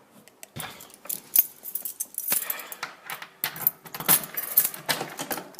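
Small metal pieces clinking and rattling in repeated bursts as a locksmith works at a door lock.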